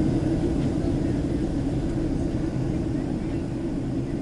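Steady roar of jet engines and rushing air inside the cabin of a Boeing 767-300 in flight, easing slightly in level.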